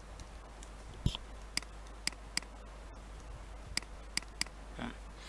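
Stylus tip tapping and clicking on a tablet screen while handwriting: about seven short sharp clicks at uneven spacing, the one about a second in with a duller thump, over a steady low hum.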